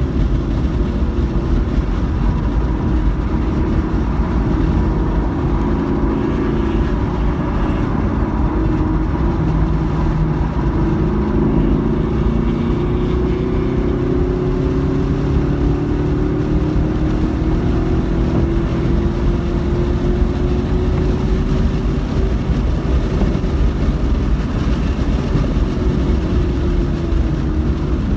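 Car engine under sustained load at track speed, heard from inside the cabin over road and wind noise. Its pitch climbs slowly as the car accelerates, then drops near the end as it slows.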